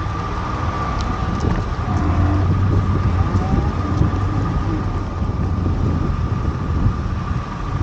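Steady low rumble with a noisy, wind-like haze and a thin steady whine, typical of a moving vehicle.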